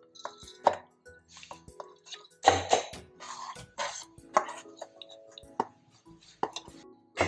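Stainless steel bowls and a spoon clinking and scraping as soaked moong dal is drained, with short splashes of the soaking water pouring off; the loudest splash comes about two and a half seconds in.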